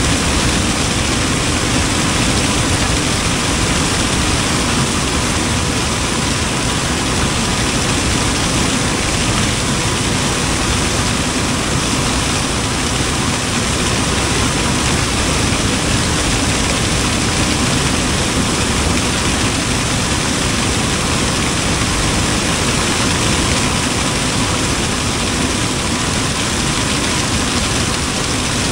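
Combine harvester running steadily as its corn head takes in rows of dry corn stalks, an even, unbroken machine noise with a faint steady whine.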